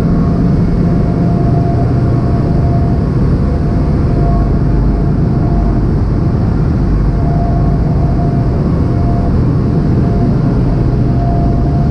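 Loud, steady low drone of a ship's engines and machinery, carried through the vehicle deck, with a faint higher whine that comes and goes.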